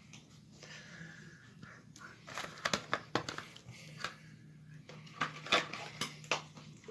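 Rustling and sharp clicking handling noise from about two seconds in, as hands move the kitten on the cloth, over a faint steady low hum.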